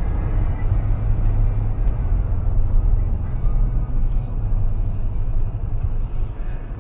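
Steady low rumble of a fifth-generation Toyota 4Runner driving at night: road and engine noise, with no change in pace.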